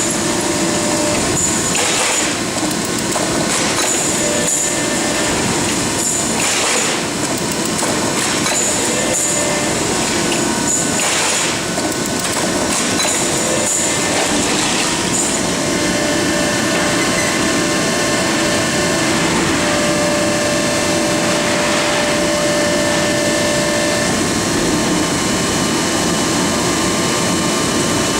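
Harris HRB two-ram horizontal baling press running: a steady industrial hum from its hydraulic power unit and electric motors. In roughly the first half there are short hissing bursts every second or two, and after that the machine runs more evenly.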